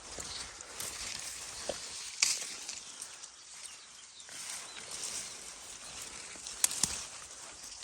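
Broad bean plants rustling and crackling as pods are picked by hand, with a few sharp snaps, one about two seconds in and two close together near the end.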